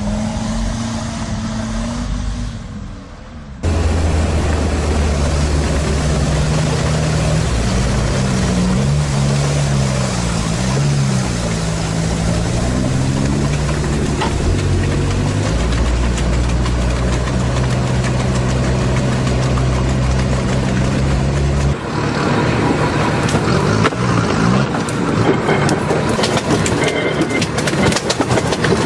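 Sherp ATV's diesel engine running and revving, its pitch rising and falling as the vehicle crawls over rough forest ground, with the sound changing abruptly twice between clips. In the last several seconds the engine is joined by a clatter of knocks and cracks as the tyres roll over logs and branches.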